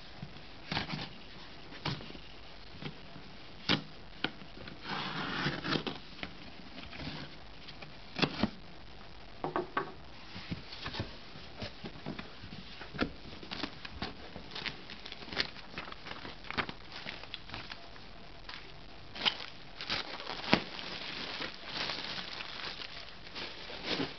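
A cardboard shipping box being handled and opened: irregular taps and scrapes on the cardboard, a blade slitting the packing tape along the seam, and crinkling and tearing as the flaps are pulled open, with longer rustling stretches about five seconds in and again near the end.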